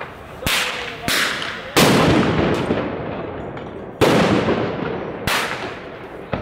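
Fireworks going off: about seven sharp bangs at uneven intervals, each trailing off in a long echo, the loudest a little before two seconds in and at four seconds.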